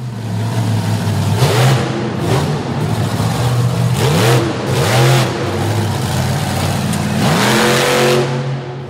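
Monster truck engine running loud under heavy throttle, revving up three times: about a second and a half in, around four seconds in, and near the end.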